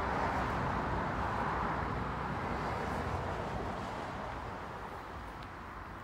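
Road traffic noise: the even rush of a passing vehicle, loudest at first and fading away over the last few seconds.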